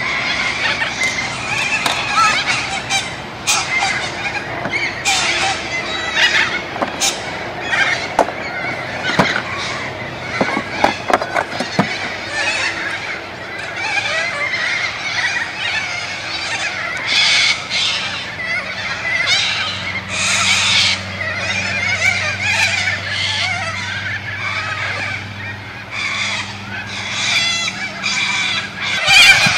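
A flock of corellas calling, many calls overlapping without a break. A faint low steady hum joins about two-thirds of the way through.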